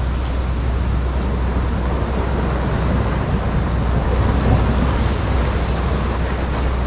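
Sea surf washing and breaking against shore rocks, with wind buffeting the microphone as a steady low rumble.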